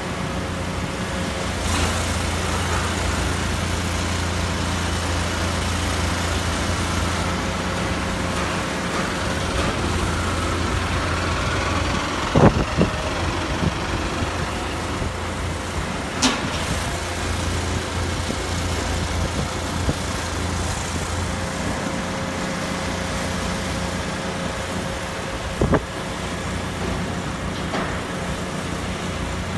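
An engine running with a steady low hum, broken by three short sharp knocks; the loudest comes about twelve seconds in.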